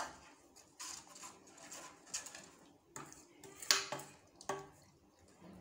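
A spoon stirring bean curry in a stainless steel pan, knocking and scraping against the metal in short strokes about once a second. The loudest knock comes a little past the middle.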